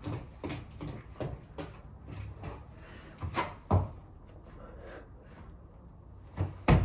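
Irregular thuds and slaps of a person doing three-pump burpees: hands and feet hitting a mat and floor while dropping into a plank and pushing up, with the loudest thud near the end as the feet land.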